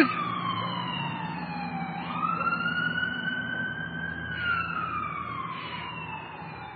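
Emergency vehicle siren wailing, its pitch sliding slowly down, then rising sharply about two seconds in and falling again toward the end.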